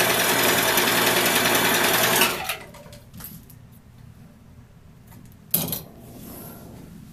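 Electric domestic sewing machine running at a steady speed, stitching a hem, then stopping abruptly about two seconds in. After that there is only low handling noise, with one short sharp sound about five and a half seconds in.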